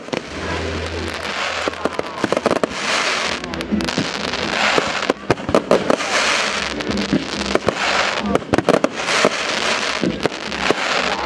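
Aerial fireworks shells bursting overhead: a rapid run of sharp bangs and cracks with dense crackle, denser and louder in several spells.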